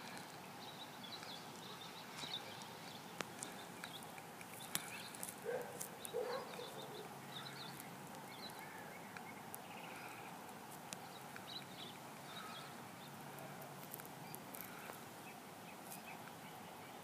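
Faint outdoor ambience with scattered short bird chirps and a few soft clicks, and a brief louder, lower call about five and a half seconds in.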